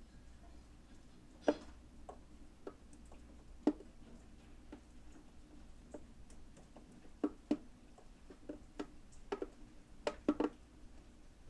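Rain dripping: single drops falling at irregular intervals, each a short tap, with a few louder drops among the fainter ones.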